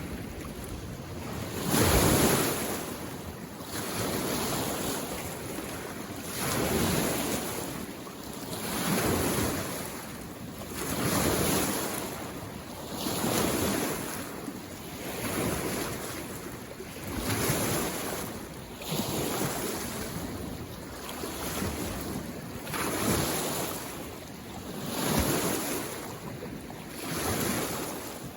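Small waves on a mountain lake washing in against the shore, each one a soft rush that swells and falls about every two seconds.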